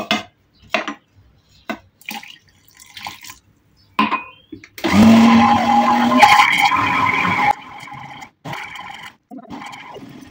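Electric blender motor switches on about five seconds in and runs loudly for nearly three seconds, mixing a semolina batter, then drops away to a much quieter sound. Before it comes a few handling clicks and knocks on the plastic jug.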